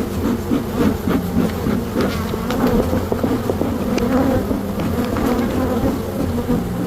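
A large number of honey bees buzzing around an opened hive: a dense, overlapping hum of many wingbeats, with a few light clicks scattered through it.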